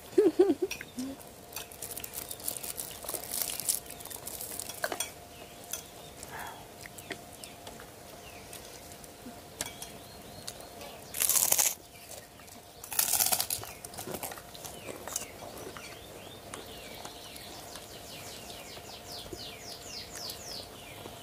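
Meal sounds: scattered small clicks, crunches and crinkles of plastic, with two short, loud hissing bursts about halfway through. A rapid run of high chirps comes near the end.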